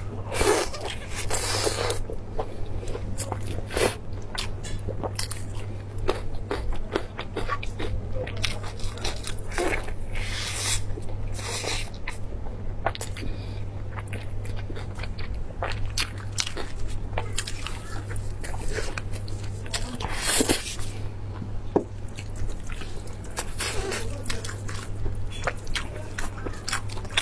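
Close-miked eating sounds: biting into and chewing mouthfuls of roast meat, with many short sharp clicks and smacks, and meat being torn apart by gloved hands. A steady low hum runs underneath.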